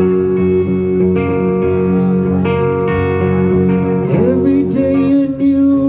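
Live rock band playing the opening of a song, with guitars sounding sustained chords. About four seconds in, a wavering higher line that bends in pitch comes in over the chords.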